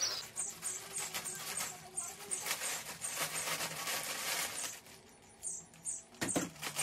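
Plastic courier bag crinkling and rustling as it is cut open with scissors and the package is pulled out, with a louder rustle about six seconds in. A bird chirps repeatedly in the background.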